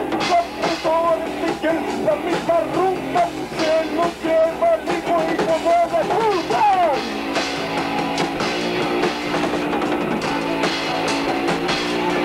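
Rock band playing live: two vocalists singing into one microphone over electric guitar and a drum kit. The vocals end about seven seconds in with a falling slide in pitch, leaving guitar and drums.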